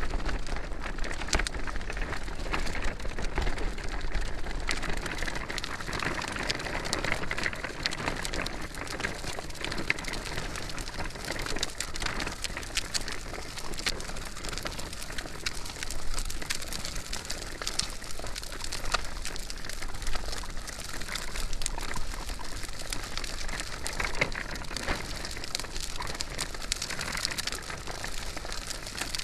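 Stroller wheels rolling along while the stroller is pushed at a walking pace: a continuous gritty crackle, dense with small clicks and rattles.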